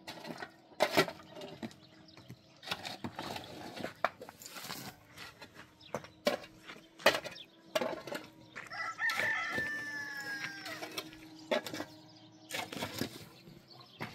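A rooster crows once, a long call of about two seconds that falls slightly in pitch, roughly nine seconds in. Irregular sharp knocks and clatter sound throughout, over a faint steady hum.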